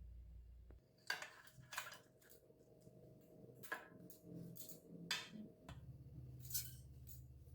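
Light clatter of kitchen items being handled: about eight sharp clicks and knocks, a few with a brief ring, over a low steady hum that drops out about a second in and comes back near the end.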